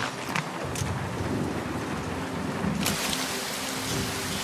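Heavy rain falling steadily, with a low rumble underneath.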